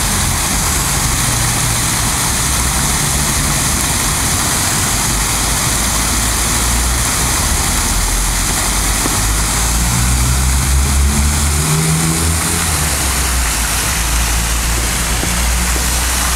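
Yamaha XJ900 Diversion's inline-four engine running under way, with steady wind rush across the microphone. The engine note shifts up and down about ten to thirteen seconds in.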